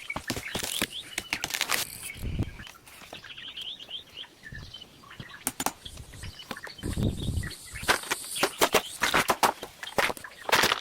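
A run of sharp clicks and knocks with a few dull thuds, and short bird chirps about three to four seconds in.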